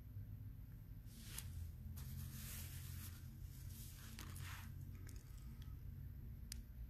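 Quiet room tone: a steady low hum, with a few seconds of faint rustling and scattered light clicks near the middle and one more click near the end.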